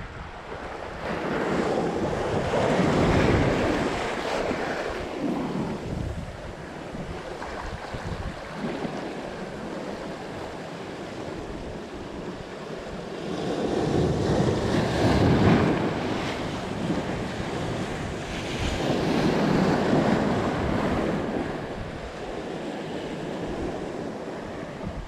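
Ocean surf washing in over a rock ledge, swelling three times: a couple of seconds in, about midway, and a few seconds later. Wind buffets the microphone.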